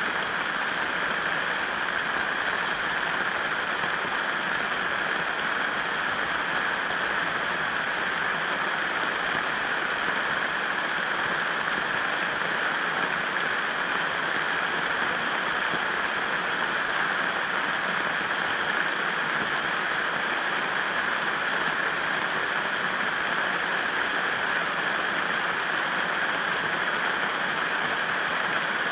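Steady rushing water, unbroken and even throughout.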